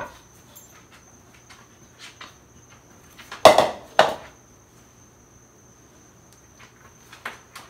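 A mixing bowl knocking twice on a granite countertop, two sharp knocks about half a second apart a few seconds in, amid light clicks and clatter of handling kitchen things.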